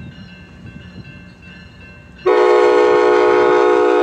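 Low rumble of a passing train, then about two seconds in a locomotive's Nathan K5LA five-chime air horn sounds a single long, very loud blast.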